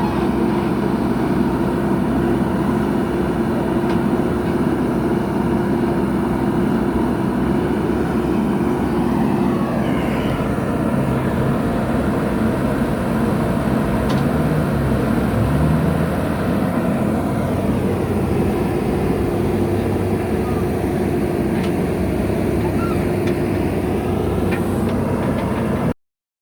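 Diesel engine of heavy earthmoving machinery running steadily under work, with a couple of slow shifts in pitch; the sound cuts off abruptly near the end.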